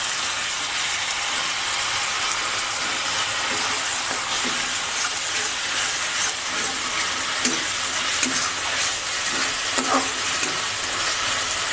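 Onions and freshly added onion paste sizzling in hot oil in a metal wok, a steady frying hiss. A metal spatula stirs and scrapes the pan at intervals.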